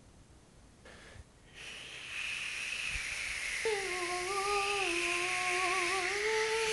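A woman making a mouth sound effect: a breathy hiss that swells, then about halfway through a wavering hummed tone joins it and is held to the end.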